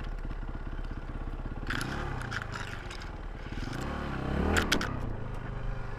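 Yamaha WR400F dirt bike's four-stroke single-cylinder engine running at low speed off-road, with the revs rising and falling twice, about two and four and a half seconds in. Branches scrape and clatter against the bike at the same moments.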